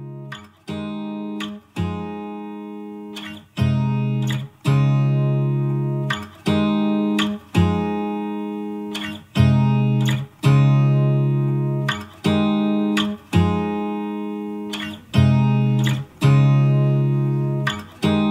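Background music: a guitar strumming chords, each chord ringing and fading, with a new strum about every second.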